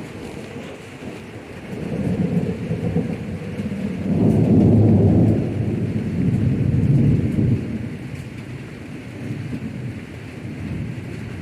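Rolling thunder over steady rain: a low rumble builds about two seconds in, is loudest in the middle, and fades out over the last few seconds.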